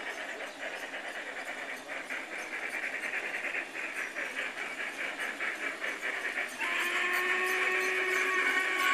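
G scale model steam locomotives running with their sound units chuffing at about four or five beats a second, growing louder as the train approaches. About two-thirds in, a chime steam whistle starts suddenly and is held with several steady tones at once.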